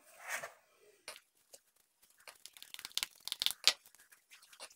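Metal spoon scraping and clicking against the bowls as mashed potato and cooked ground beef are scooped out: a run of short clicks and scrapes, densest about two to four seconds in.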